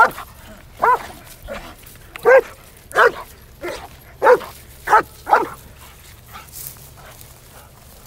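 A police dog barking in loud single barks, about one every half second to a second, at a helper it has found in a person-search exercise: a bark indication. The barking stops about five and a half seconds in.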